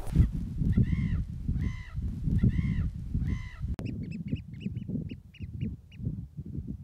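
Wind buffeting the microphone, with bird calls over it: four drawn-out calls about a second apart, then a rapid series of short, high piping calls.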